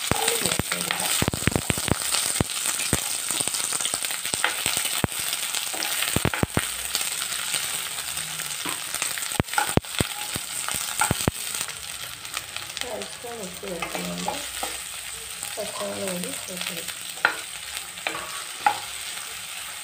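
Shallots sizzling in hot oil in a nonstick kadai, stirred with a spatula that scrapes the pan. There are many sharp clicks in the first several seconds, fewer later.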